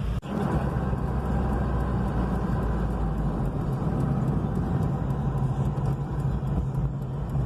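A car on the move: steady engine and road noise with a low hum, heard from inside the cabin.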